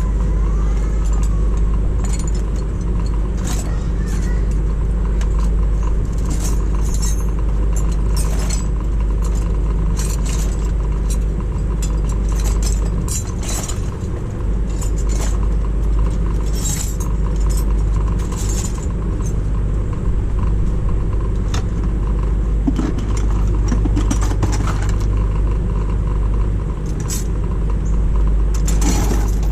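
Scattered metallic clinks and clanks, like hand tools and loose metal parts being handled, over a steady low rumble.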